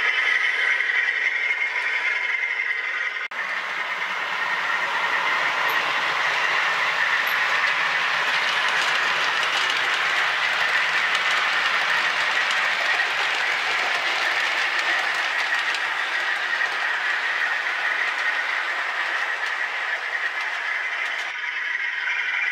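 OO gauge model train running on the layout's track, a steady rolling noise of wheels and motor. The sound changes abruptly about three seconds in and becomes fuller and closer.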